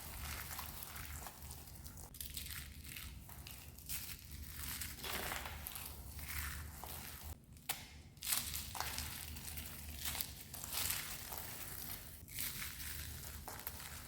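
Crispy dried soap being crushed and crumbled, a run of irregular crunching and crackling with brief pauses between the squeezes.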